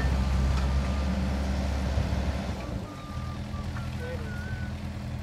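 Kobelco SK50 mini excavator's diesel engine running steadily, its low note dropping and settling to a quieter, lower-load run about two and a half seconds in.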